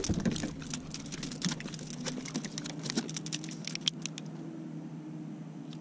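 A freshly landed fish flopping on the plastic deck of a fishing kayak: a quick run of light taps and rattles that thins out about four seconds in, over a low steady hum.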